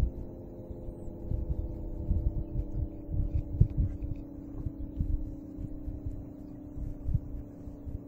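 ASC T-128 outdoor warning siren sounding a steady chord, its pitch sagging very slowly as it winds down at the end of its test. Wind buffets the microphone in low thumps.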